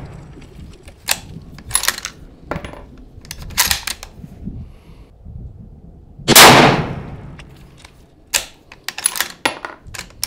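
A 6.5 Creedmoor bolt-action rifle fires a single shot about six seconds in, the report ringing away over about a second, during a five-shot barrel break-in string. Before and after it come several sharp metallic clicks and clacks of the bolt being worked to eject the case and chamber the next round.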